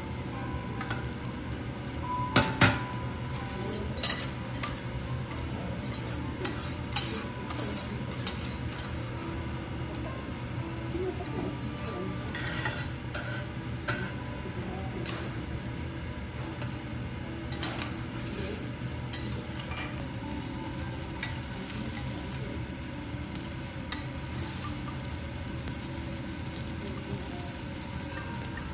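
Wagyu beef and onion sizzling on a steel teppanyaki griddle, with metal spatulas scraping and clicking against the steel now and then. The sharpest clicks come about two and a half seconds in.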